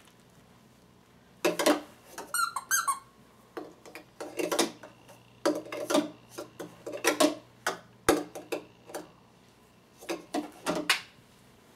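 Hard plastic toys being handled by a baby: irregular clusters of clicks, knocks and clatter, starting about a second and a half in, with a single low bump about eight seconds in.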